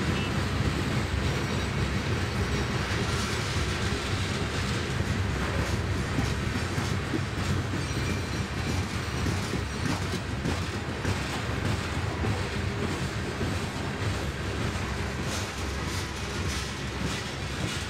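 Loaded BNSF coal train rolling along: a steady low rumble of the cars, with wheel clicks that grow more frequent in the second half.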